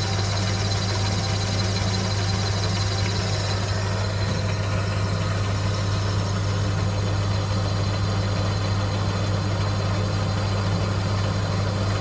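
Metal lathe running with a steady motor hum, its carbide-insert tool turning an aluminium bar.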